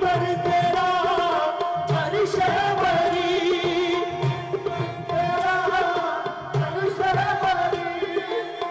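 Qawwali music: harmonium holding sustained notes under male voices singing, with tabla strokes keeping a steady beat.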